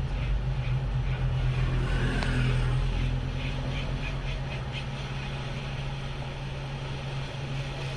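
Steady whirring hum of a hot air rework gun's blower, heating the phone's CPU chip to soften its solder before prying.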